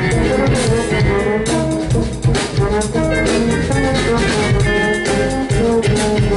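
Live jazz band playing: drum kit with electric bass, keyboard, electric guitar and trombone.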